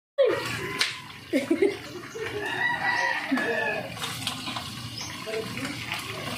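Chickens clucking and a rooster crowing over the steady sizzle of pork frying in hot oil.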